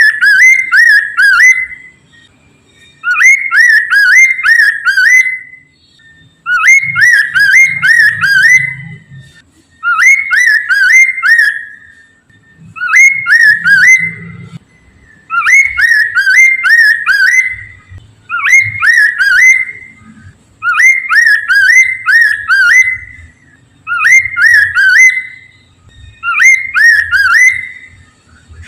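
Poksay mandarin, a laughingthrush, singing a loud whistled song: bursts of about five quick rising whistles, each burst about two seconds long, repeated steadily every three seconds or so.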